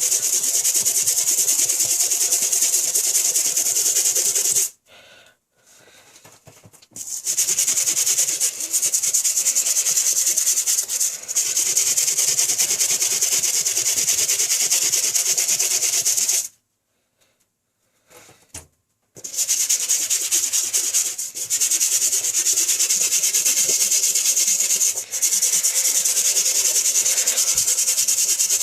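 Toothbrush dipped in diluted bleach scrubbing a sneaker's yellowed translucent rubber sole: fast, steady scratching strokes. The scrubbing stops twice for a couple of seconds, about five seconds in and again around sixteen seconds.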